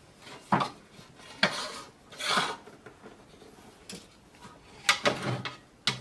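A bicycle truing stand with metal tubes being handled and set down on a workbench: a handful of separate clanks and knocks with some rubbing between them, as the stand is tilted into position.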